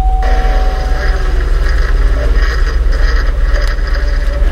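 Volvo car engine idling with a steady low rumble while the steering wheel is turned. The power steering pump groans as it cavitates and draws air bubbles into the fluid, the fault behind the steering growing heavy.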